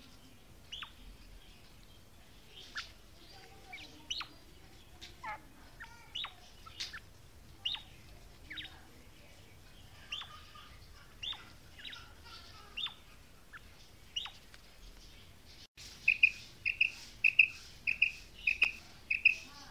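Female quail calling: a series of sharp falling chirps, roughly one a second. Then, after an abrupt cut, a louder, faster run of short repeated notes, about three a second, near the end.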